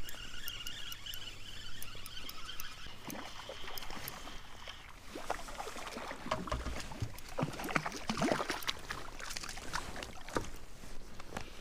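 Water splashing and sloshing with irregular knocks against a fishing kayak, starting about five seconds in. Before that, a faint steady high tone.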